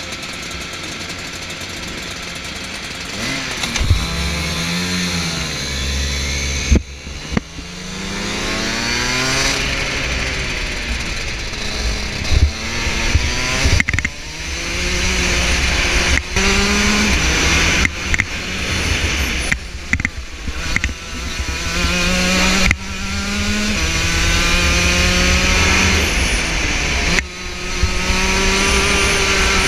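Rotax DD2 kart's 125cc two-stroke single-cylinder engine, heard onboard. It idles steadily at first, then pulls away about seven seconds in with the revs climbing. The revs then rise and drop off sharply again and again through the lap.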